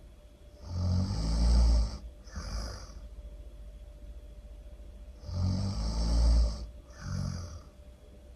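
A person snoring loudly, twice: each time a long low snore of about a second and a half, then a shorter, softer breath, the cycle coming round about every five seconds.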